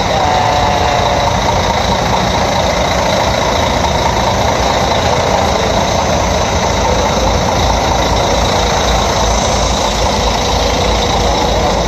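Heavy diesel engine idling steadily, a loud, constant low rumble.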